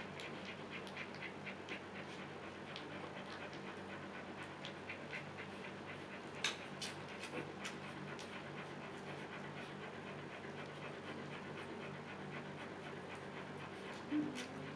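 Siberian husky panting steadily with her mouth open, about three breaths a second, the heavy panting of a dog in labor. A sharp click sounds about six and a half seconds in.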